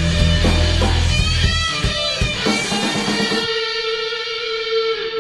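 Guitar-led outro music. About three and a half seconds in, the low end drops out and a single held note rings on.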